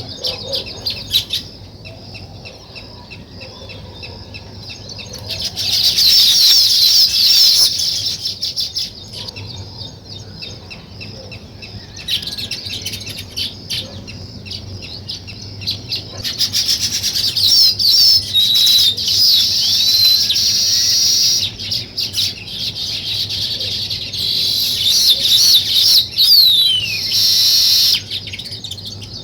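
A flock of small songbirds chirping and twittering, swelling into loud stretches of dense, overlapping chirps three times, with scattered single chirps in between.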